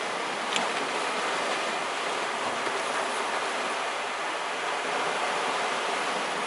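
Sea waves washing steadily against a rocky shore, an even rushing hiss, with a faint click about half a second in.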